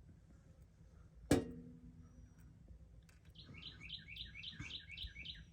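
A single sharp metallic clink with a short ringing tone, then a bird's quick run of about ten repeated chirps, roughly five a second, lasting about two seconds near the end.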